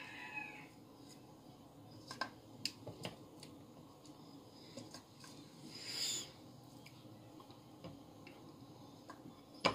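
Quiet kitchen handling: a few faint clicks and soft taps as tomato slices are picked from a glass bowl and laid in an oiled aluminium ring pan, with a brief soft hiss about six seconds in.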